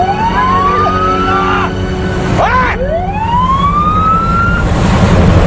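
A siren sounding a series of rising whoops, each sweeping up over about two seconds, over a steady low engine hum.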